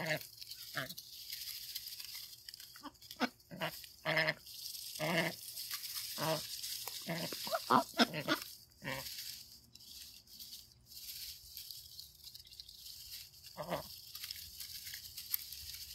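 Domestic ducks giving short quacks, a dozen or so scattered calls with a quick run of them in the middle and one more near the end.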